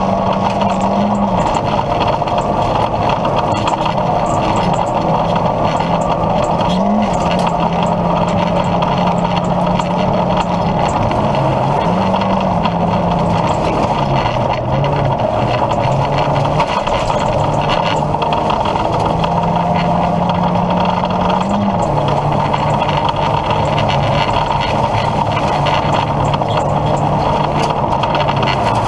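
Opel Astra G rally car's 1.6-litre four-cylinder engine heard from inside the cabin, running hard at sustained high revs, its pitch briefly rising and dropping several times as the driver changes gear. A constant loud rush of road and tyre noise runs underneath.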